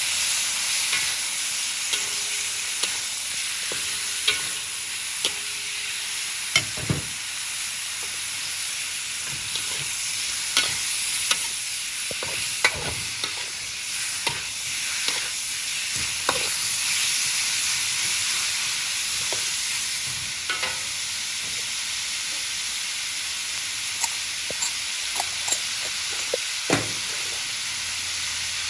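Sliced pork belly sizzling in a steel wok, stir-fried with a metal spatula that scrapes and knocks against the pan at irregular moments.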